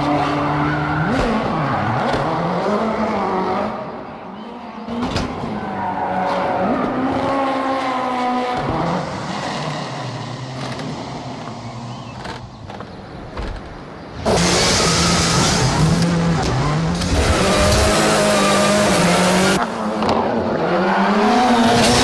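Ford Fiesta rally car engine revving hard, its pitch swinging up and down as the car drifts. In the second half comes a louder stretch of tyre squeal lasting about five seconds, with a brief break in the middle.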